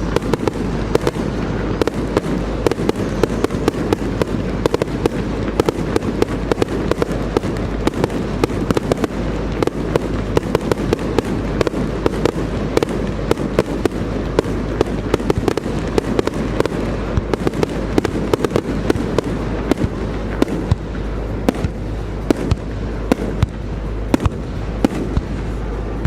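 Fireworks display in a dense, continuous barrage: many sharp bangs and crackles every second over a steady low rumble.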